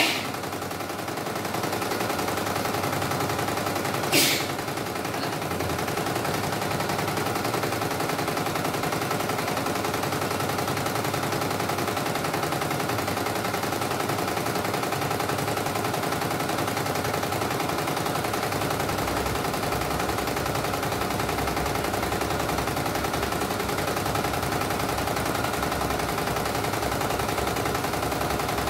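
CNY E900 computerized embroidery machine stitching at speed, a fast, even needle clatter, on a test run after its mainboard was replaced. Two short sharp clicks stand out, one at the start and one about four seconds in.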